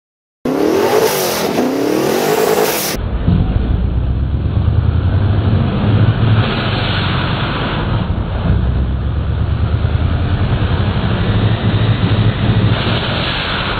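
The engine of an 1800-horsepower sand buggy revving hard, its pitch rising and falling for the first couple of seconds. It then settles into a steady, deep drone, duller and heard from inside the cockpit as the buggy runs across the sand.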